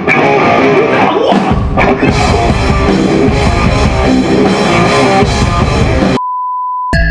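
Loud hardcore band music: pounding drum kit and distorted electric guitars, getting heavier in the low end about a second and a half in. Near the end it cuts off abruptly into a steady high beep tone lasting under a second.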